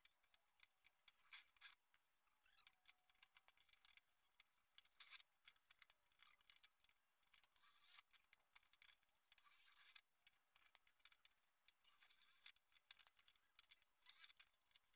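Near silence, with only a faint high hiss and tiny clicks.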